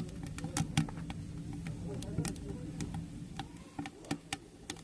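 Firewood crackling and popping as it burns in a G-Stove wood stove, with irregular sharp snaps scattered through.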